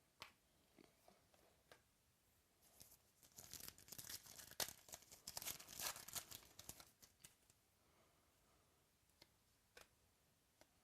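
Faint crinkling and tearing of a foil trading-card pack wrapper being ripped open, a few seconds of dense crackle in the middle, with light clicks of cards being handled before and after.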